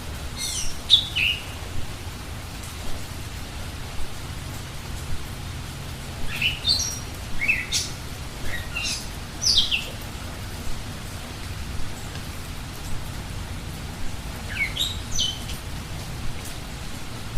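Steady rain, with birds giving short, high chirps that fall in pitch: a few near the start, a run of them in the middle, and a few more near the end.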